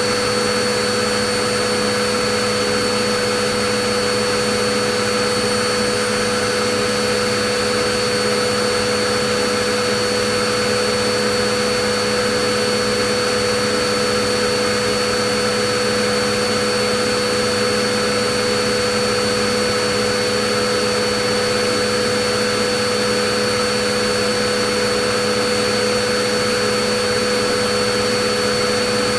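Vacuum cleaner motor running steadily: an even rushing whir with a constant motor whine.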